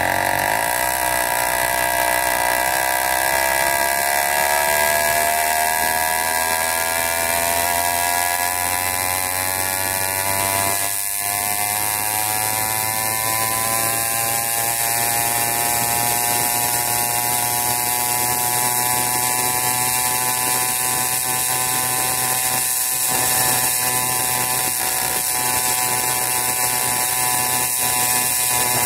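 80cc PK80 two-stroke bicycle engine kit buzzing under way, its pitch rising steadily as the bike gathers speed over the first fifteen seconds or so, then holding an even pitch at cruising speed.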